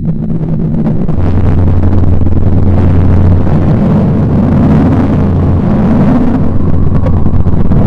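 A 'planet sound from space' track, the kind made by turning a spacecraft's radio or plasma-wave recordings into sound: a loud, steady, rumbling drone with a low hum running under it, starting suddenly.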